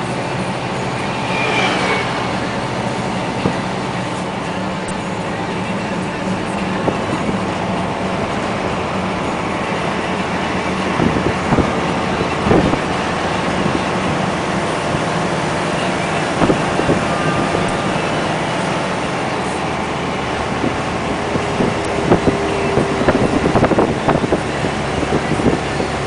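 Loaded UD Quon heavy dump truck's diesel engine running steadily, with knocks and rattles at intervals, heaviest about eleven to thirteen seconds in and again near the end.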